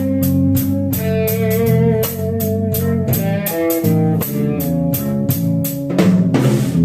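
Blues band playing an instrumental passage between sung lines: guitar over bass and a drum kit keeping a steady beat, with a cymbal wash about six seconds in.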